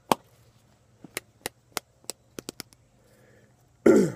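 A can of Copenhagen Wintergreen dip being packed by flicking the wrist: a run of sharp taps, several in quick succession, then near the end a brief louder scrape as the lid is cracked open.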